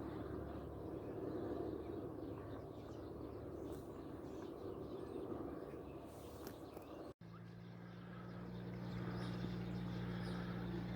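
Light propeller aircraft engine droning at a distance, fading over the first seven seconds. After a brief cut about seven seconds in, a steady low engine drone follows.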